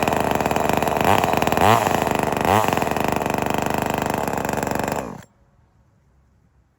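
Small 25cc two-stroke gasoline chainsaw engine running at high speed, its pitch briefly rising and falling three times, then cutting off abruptly about five seconds in.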